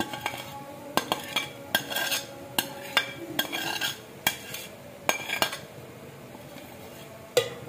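Steel spoon scraping and clinking against a ceramic plate as leftover fried potatoes and masala are scraped off into a cooking pot: about ten quick scrapes over five seconds, then a pause and one sharp knock near the end.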